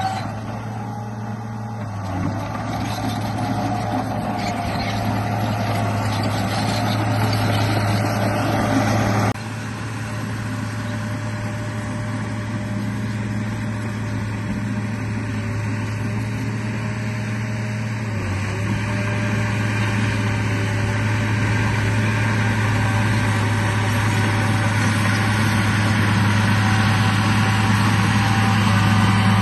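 Bulldozer engine sound running steadily with a low, even drone, changing abruptly about nine seconds in.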